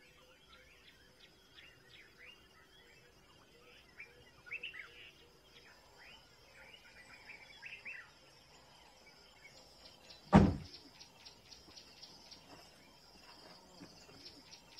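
Birds chirping at dawn: many short, quick chirps and whistles, joined in the second half by a high chirp repeated about four times a second. A single loud thump comes about ten seconds in, louder than anything else.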